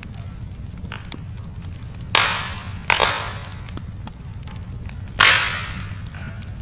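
Wood fire burning in a fireplace: a steady low rumble with constant small crackles, and three loud sharp pops from the burning logs, about two seconds in, again a moment later, and a louder one about five seconds in, each fading off in a short hiss.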